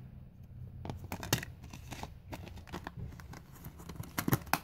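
Plastic DVD cases being handled: quiet scattered clicks and rustles of the cases, with a few sharper clicks near the end.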